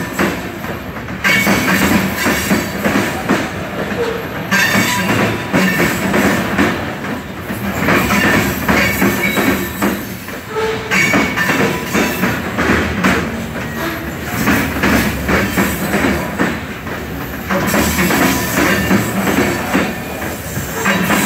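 Covered hopper cars of a frac sand freight train rolling past: a continuous clatter and rumble of steel wheels over the rail joints, with a faint high wheel squeal at times on the curve.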